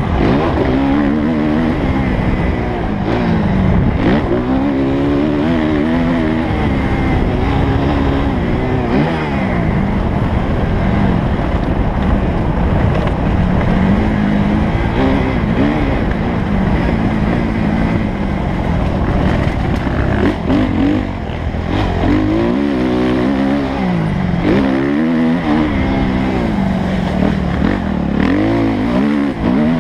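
Suzuki motocross bike's engine, heard from the rider's helmet camera, revving hard and repeatedly climbing and dropping in pitch as the rider accelerates, shifts and backs off over the dirt track.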